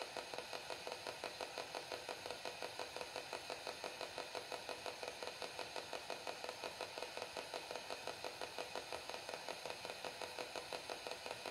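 Faint, steady mechanical pulsing from a small machine, about five even beats a second, with no change in speed or level.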